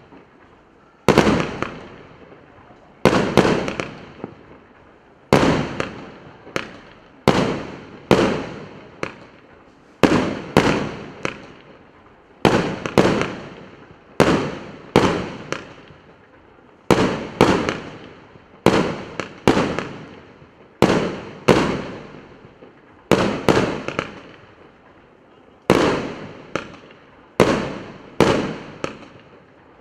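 A 100-shot, 1-inch (25 mm) calibre firework cake firing shot after shot, about one a second with some closer together. Each is a sharp bang that dies away quickly.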